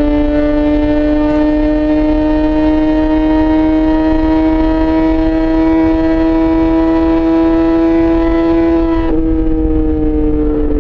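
Yamaha XJ6 S inline-four engine through an SC-Project aftermarket exhaust, pulling steadily in gear with its pitch slowly rising. About nine seconds in, the throttle closes and the revs slowly fall.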